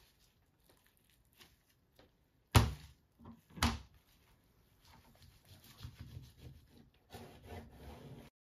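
Hands rolling a gimbap on a cutting board: the dried seaweed sheet crinkles and rustles against the rice and board, with two sharp knocks about a second apart near the middle. The sound cuts off abruptly just before the end.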